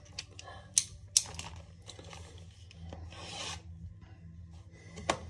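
Hand handling noise: two sharp clicks about a second in, then rubbing and scraping, and another click near the end.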